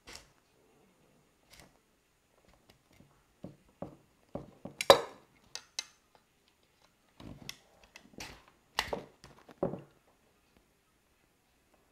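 Scattered metal clicks and clinks of slip-joint pliers gripping and working two steel guide rods out of a plastic CNC Z-axis housing, with a sharp knock about five seconds in and another group of knocks near nine seconds.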